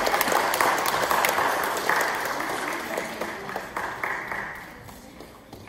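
Audience applauding, a dense patter of many hands clapping that is loudest for the first few seconds and then dies away near the end.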